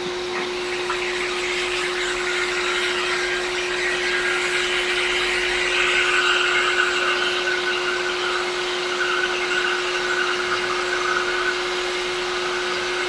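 Hot air rework station blowing steadily over a circuit board with a constant hum underneath, heating the solder to desolder a battery connector; the airy hiss swells a little through the middle.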